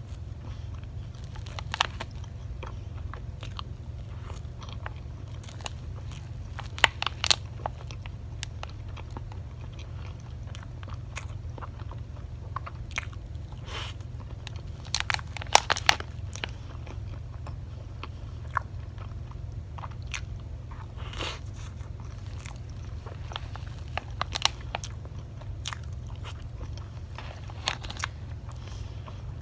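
Close-up eating of a soft cream-filled sponge Swiss roll: moist chewing and mouth sounds, broken by scattered sharp clicks and small clusters of taps, over a steady low hum.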